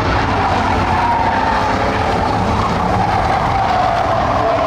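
A pack of Ford Crown Victoria V8 stock cars racing together on a dirt oval, several engines running at once at a steady level. One engine note stands out and slowly drops in pitch across the middle.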